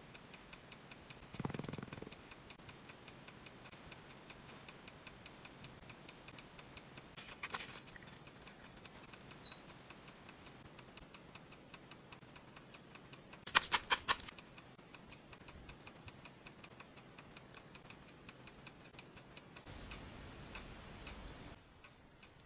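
Faint, regular ticking, broken by short bursts of rapid clicking, the loudest just past halfway, and a soft thud near the start.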